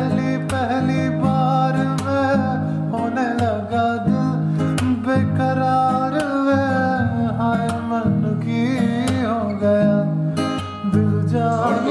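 Background music: a song with strummed acoustic guitar under a singing voice.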